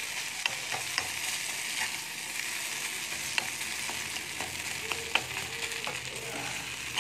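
Crumbled fish and onion frying with a steady sizzle in a pan while a steel spoon stirs and breaks them up, its edge clicking and scraping against the pan now and then.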